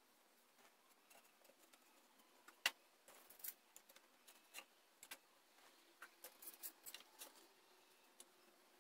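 Faint, scattered clicks and knocks of wooden boards being positioned and metal bar clamps being set on them, with one sharp click a little under three seconds in and a quick run of clicks near the end.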